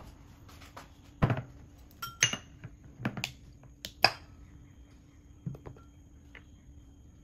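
Tableware being set down on a table: about half a dozen knocks and glassy clinks as a tall glass and metal tongs are placed. The loudest knocks come about a second in and about four seconds in, and it goes quiet after about five and a half seconds.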